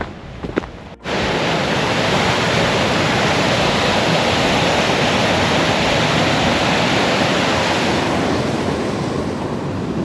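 Loud, steady rush of fast-flowing water from a stream under a forest-road bridge. It comes in suddenly about a second in, after a few footsteps.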